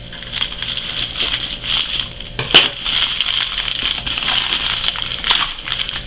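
Packaging being handled: crinkling and crackling with scattered clicks and one sharp knock about two and a half seconds in, over a steady high hiss.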